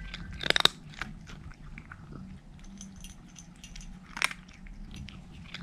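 A black cat crunching dry kibble from a bowl: a steady run of small crisp crunches and clicks, loudest about half a second in and again near four seconds.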